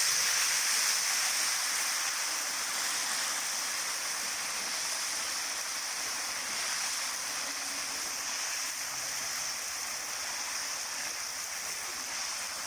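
Ginger-garlic paste sizzling in hot oil in a large cooking pot, a steady hiss that slowly dies down.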